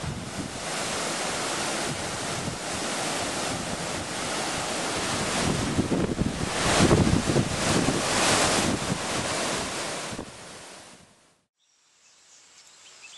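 A rushing, wind-like noise that swells to its loudest about seven seconds in and then fades away a little past eleven seconds. Faint high chirps start near the end.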